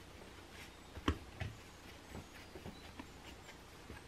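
Hands pressing and folding pandesal dough on a wooden cutting board: scattered thumps and pats, the loudest about a second in.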